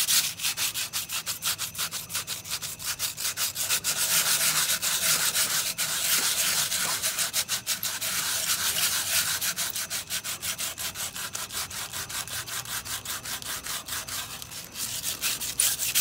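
Wet crumpled aluminum foil scrubbed in quick back-and-forth strokes against chrome, rubbing rust off a chrome headlight rim: a steady, rhythmic scratchy hiss.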